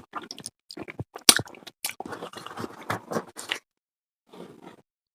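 A person eating close to the microphone: wet chewing and biting mouth sounds with sharp clicks, dense for about three and a half seconds, then a pause and a brief bit more near the end.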